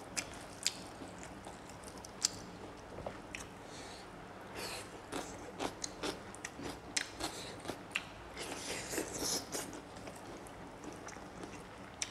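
Close-up mouth sounds of a man chewing rice with pork and dry bamboo shoot: crunchy bites and sharp wet clicks, thickest in two busy spells around the middle and later part.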